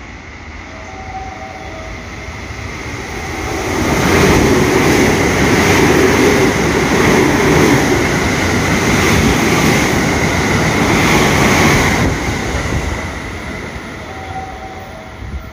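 A train passing through the station: its noise builds over the first few seconds, stays loud for about eight seconds with a steady high ring, then dies away.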